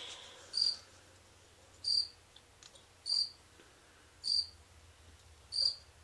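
A cricket chirping: five short, high chirps, one about every second and a quarter.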